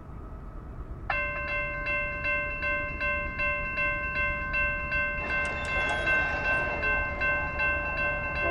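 Railroad grade-crossing bell starts ringing about a second in, with about three strokes a second. From about halfway, the noise of an approaching train builds underneath it.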